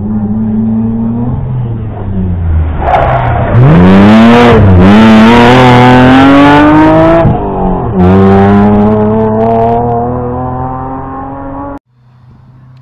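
Rally car engine revving hard as the car accelerates through the bend and past, the pitch climbing and dropping at each gear change, twice. Afterwards the engine note sinks steadily as the car pulls away.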